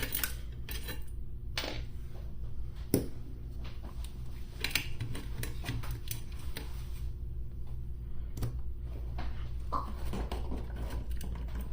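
Scattered small clicks and ticks of a screwdriver and hands working out the Phillips screws that hold a car radio's cassette mechanism, over a steady low hum.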